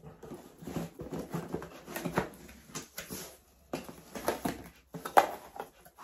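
A cardboard box and its packaging being opened and handled: irregular rustling and scraping, with a sharp knock about five seconds in.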